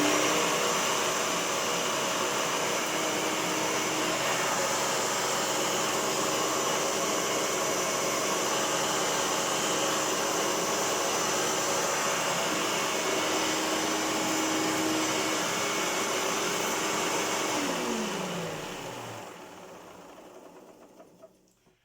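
Hoover Turbopower U2806 upright vacuum cleaner running: its motor spins up and runs steadily, then is switched off about 18 seconds in and winds down with a falling pitch over a few seconds. The motor sounds absolutely fine, while the brush roll carries a distinct bearing grumble that the owner takes for worn brush roll bearings.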